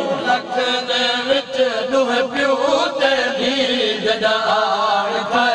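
A group of men chanting a noha refrain together in unison, a held, slowly wavering melody with no instruments.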